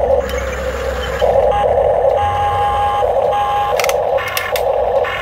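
Electronic sound effects of a remote-control toy excavator from its small built-in speaker: a buzzy sound pulsing roughly every half second, with a held beep-like tone in the middle and a few sharp clicks about four seconds in.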